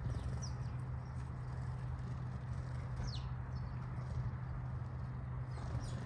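House sparrows and a common myna pecking at cooked rice on concrete: light tapping of beaks and a few short, falling chirps, over a steady low hum.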